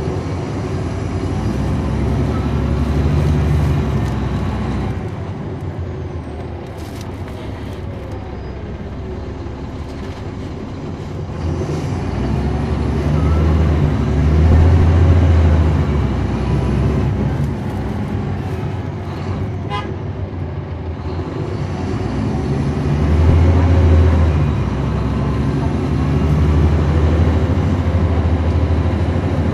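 Caterpillar C13 ACERT diesel engine and ZF 6HP594C automatic transmission of a 2009 NABI 40-SFW transit bus, heard from inside the cabin. The deep engine rumble swells as the bus pulls away and accelerates several times, and eases off in quieter stretches between.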